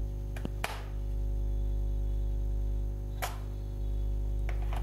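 Hard plastic clicks and clacks as an IBELL 20 V cordless-tool battery pack is slid onto its charger's mount and lifted off again. There are two louder clacks, one under a second in and one a little over three seconds in, with lighter ticks between them, over a steady low hum.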